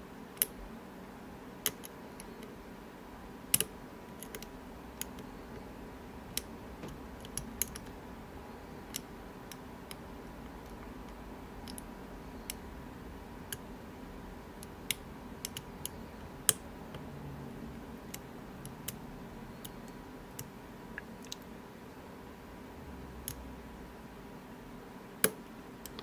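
Faint, irregular metallic clicks and ticks of a lock pick and tension wrench working the pin tumblers inside an Illinois Duo padlock's keyway, with a few sharper clicks among them, over a faint steady hum.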